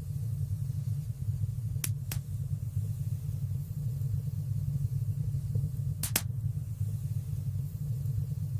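Wood fire burning in a stone fireplace: a steady low rumble with a few sharp crackling pops, a pair about two seconds in and another pair about six seconds in.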